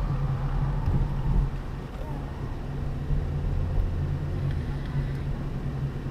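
Steady low hum of a car's engine and tyres heard from inside the cabin while driving, with a deeper drone coming in for about two seconds midway.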